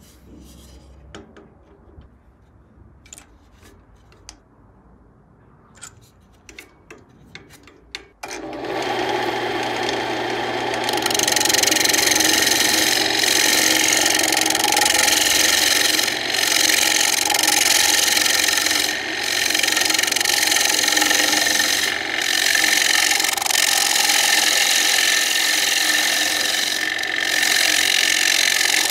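A few light clicks and knocks as the walnut plate is fitted to the metal lathe chuck. About eight seconds in, the wood lathe's motor starts. From about eleven seconds a gouge cuts the face of the spinning walnut plate with a steady scraping of shavings, breaking off briefly every few seconds as the tool lifts.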